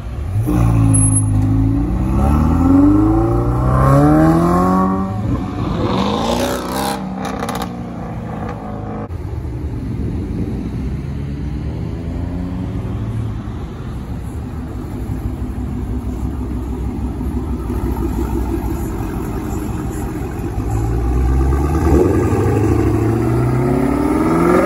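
A car engine revving and accelerating hard, its pitch climbing for several seconds near the start. A steadier engine drone follows, then another climb in pitch near the end.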